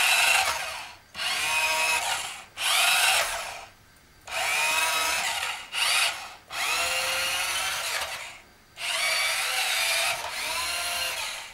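Small electric drive motor and gearing of a toy RC car whining in repeated bursts of throttle, each a second or two long, its pitch rising and falling as it revs, with short pauses between. The rear-wheel-drive car is spinning its hard plastic wheels on a rug, which gives little traction.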